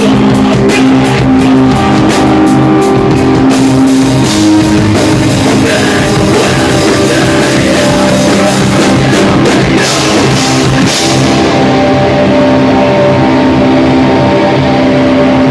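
Live rock band playing loudly, with electric guitars and a drum kit with cymbal hits. About eleven seconds in the drums and cymbals stop, leaving the guitars ringing on held chords.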